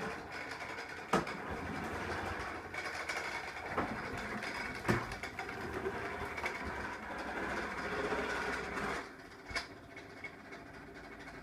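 Toy bubble lawn mower being pushed, its battery-powered noisemaker giving a steady mechanical running sound like a real lawnmower, with a few sharp knocks. The running sound drops away about nine seconds in.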